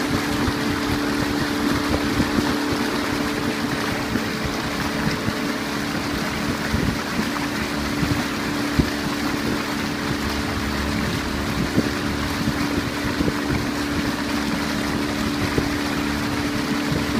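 A boat's engine running steadily under way, giving an even hum, with wind buffeting the microphone.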